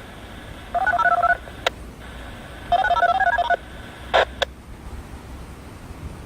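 Two short bursts of rapid DTMF touch-tone beeps, the second a little longer, heard over a narrow-band radio channel, with sharp clicks after each burst.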